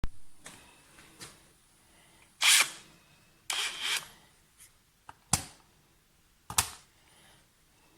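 Short, irregular clicks and knocks from handling a cordless combi drill, about seven in all, the loudest about two and a half seconds in.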